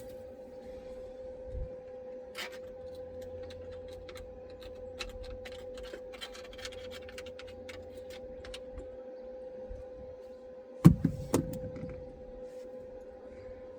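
Hand tools and metal parts being worked on an engine: scattered light clicks and scrapes, then three loud clunks close together near the end. A steady hum runs underneath.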